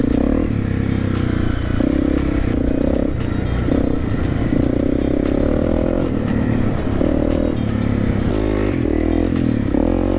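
Honda CRF250L's single-cylinder four-stroke engine running while the bike is ridden, its pitch rising and falling in steps as the throttle and gears change.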